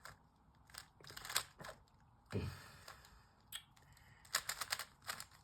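Faint plastic clicking of a Rubik's cube being turned: scattered single clacks, then a quick run of turns near the end.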